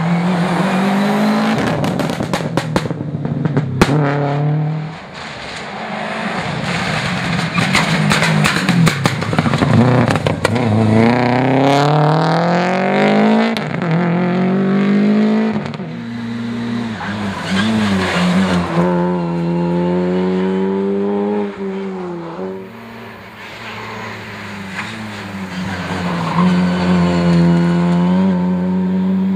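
Subaru Impreza rally car's flat-four engine accelerating hard through the gears, pitch climbing and dropping at each upshift, with sharp cracks in the first few seconds. Near the end an Opel Adam rally car's engine revs up as it comes through.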